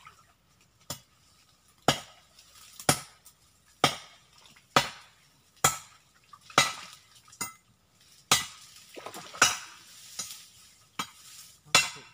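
A machete chopping at branches: about a dozen sharp strokes, roughly one a second.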